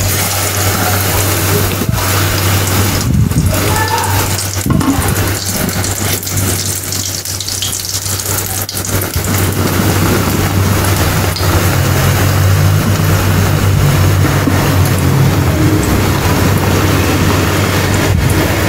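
Batter-coated stuffed bread sizzling steadily as it deep-fries in hot oil in a steel kadai, with a steady low hum underneath.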